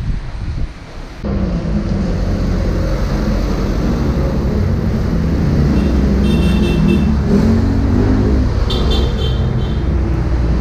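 Steady low rumble of wind on the microphone and road traffic while riding a bicycle, starting suddenly about a second in. Two short, high, thin sounds come in the second half.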